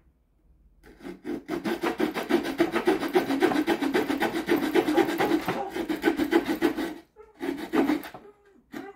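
Small folding saw blade of a Rocktol SK02 multitool cutting a softwood board: quick back-and-forth rasping strokes that start about a second in, stop near seven seconds, then a short final burst.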